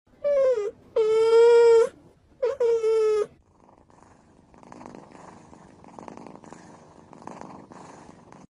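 A cat gives three drawn-out meows, the middle one the longest. After them it purrs softly and steadily.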